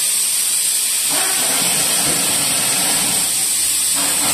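A steady high-pitched hiss, with faint low sounds underneath.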